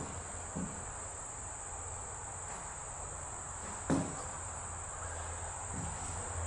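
Steady high-pitched chirring of crickets, with a low steady rumble beneath. A few thumps of footsteps on the old wooden floor break in, the loudest about four seconds in.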